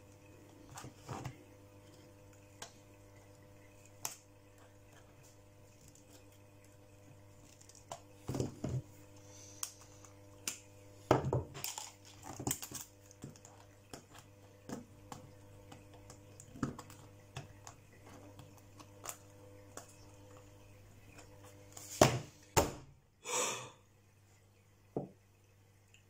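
Small aluminium scales on a leather apron clinking and clicking against one another as they are handled, in scattered taps with a busier run of clinks about a third of the way in. Near the end comes a louder clatter and then a brief rustling scrape.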